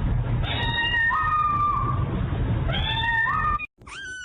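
Cat meowing: two long drawn-out meows over a loud low rumble, the second rising in pitch partway through. After a sudden break, a higher-pitched meow falling in pitch begins near the end.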